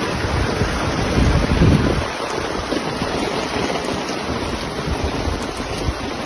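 Steady rush of floodwater and rain, with wind buffeting the microphone in low rumbling gusts, strongest between about one and two seconds in.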